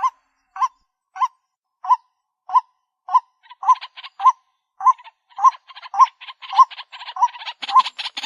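White-breasted waterhen calling: a short 'kwak' note repeated about every two-thirds of a second. From about three and a half seconds in, faster scratchy chattering joins between the notes and grows busier toward the end.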